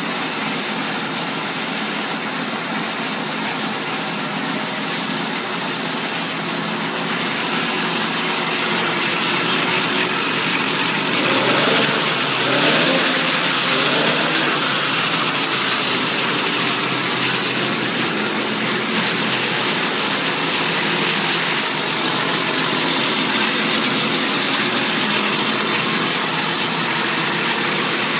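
Small engine of a motorized chopper bicycle running at idle, revved up and down a couple of times about halfway through.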